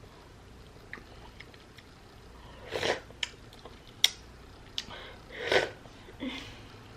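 Close-up wet eating sounds from someone eating a sauce-covered turkey leg: chewing with sharp mouth clicks, and two louder noisy swells about three and five and a half seconds in.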